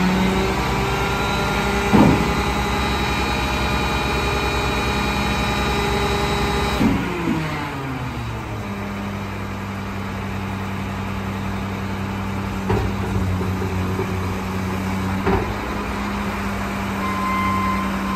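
Front-loader garbage truck's diesel engine running at raised revs, then dropping to a lower idle about seven seconds in. A sharp metal bang about two seconds in and lighter clunks later come from the dumpster and lift arms on the forks.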